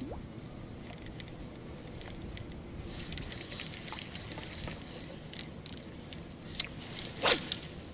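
Popper lure being twitched across a calm pond surface, making faint small splashes among a few light ticks, with one short louder sound just after seven seconds.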